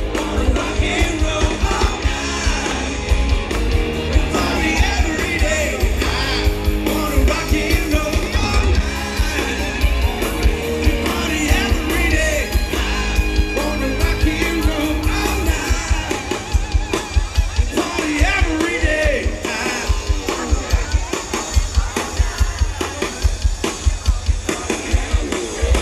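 Live band playing over an outdoor concert PA: a man singing with electric guitar, drums and a heavy bass beat.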